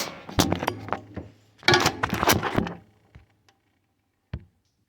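Handling noise: clicks, clinks and rustling of small hard objects, in a burst at the start and another about two seconds in, then a single sharp click near the end.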